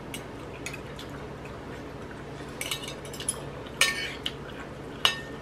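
Metal spoon and fork scraping and clinking against a ceramic plate while eating: a handful of irregular sharp clinks, the two loudest about four and five seconds in.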